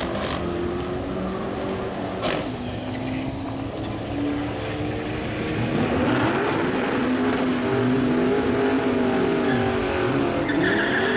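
Ford FG GS ute's V8 at full throttle on a quarter-mile drag pass, pitch climbing with a sharp drop at a gear change about two seconds in, then rising and falling again through the later gears as the car pulls away.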